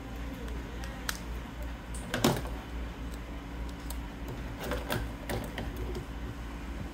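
Scissors snipping thin metal sheet: a few sharp snips and clicks, the loudest about two seconds in, then light crinkling and clicks around five seconds in as the cut strip and scissors are handled.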